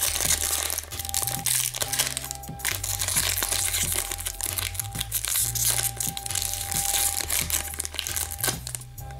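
Foil wrapper of a hockey card pack crinkling and tearing as it is pulled open by hand, over background music with a steady bass.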